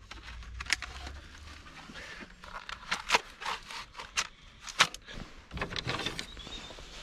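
Sharp, irregular scrapes and clicks of a spade being worked into wet soil and turf while planting hedge plants, then the clack of bamboo canes being pulled from a bundle near the end.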